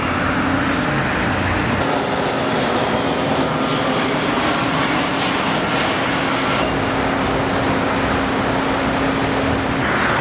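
Steady rushing noise of motor traffic, with a steady engine drone that holds until near the end.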